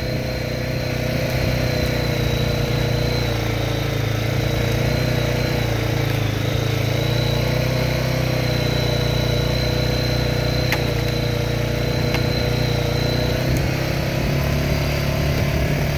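Engine of a small off-road vehicle running steadily at an even speed as it drives along a dirt trail, with a thin steady whine above the hum; the pitch sags slightly about six seconds in.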